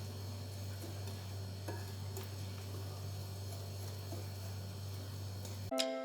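Flour being mixed into cake batter: a low steady hum with faint, scattered clicks of a utensil against the bowl. Near the end the hum cuts off and soft background music begins.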